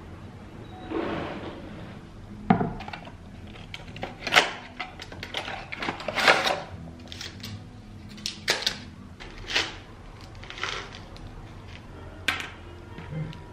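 Irregular clicks, knocks and light clatter of small objects being handled in a small room, a sharp sound every second or two.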